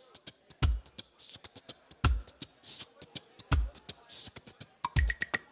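A sparse percussion groove with nothing else playing: a deep bass thump about every one and a half seconds, a hissing high sound between the thumps, and light clicks, with a quick run of four short high ticks near the end.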